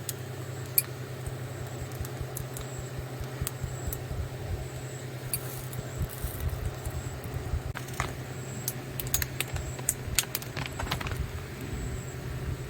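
Scattered light clicks and taps of a utensil against a pan as tomato paste is spread on rice paper. They come thickest in the later seconds, over a steady low hum.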